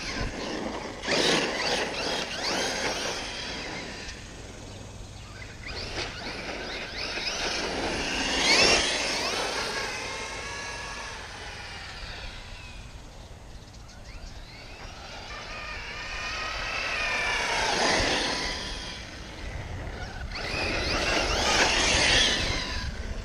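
Arrma Kraton 6S RC monster truck's brushless motor whining in repeated runs as it accelerates and slows, its pitch rising and falling with each burst of throttle; loudest about eight seconds in.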